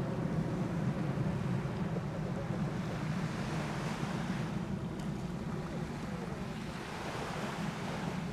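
Distant jet noise of a Cessna Citation CJ3+ business jet climbing away after takeoff: a steady low rush from its twin Williams FJ44 turbofans, slowly fading.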